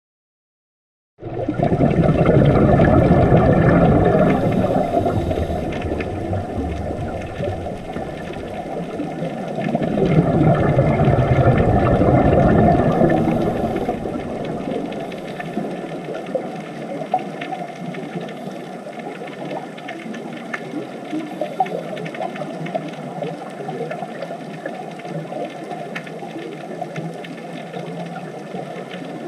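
Underwater ambience: a steady low rushing wash of water noise that comes in about a second in, swelling with deep rumble twice (early and around ten seconds in), then settling into a quieter wash with faint scattered crackles.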